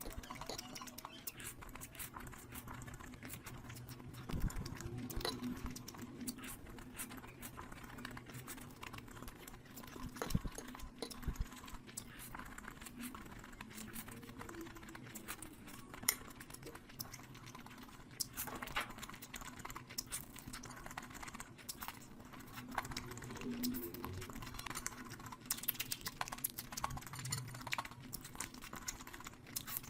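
A person eating curry and rice close to the microphone: chewing, with many small irregular wet clicks and smacks.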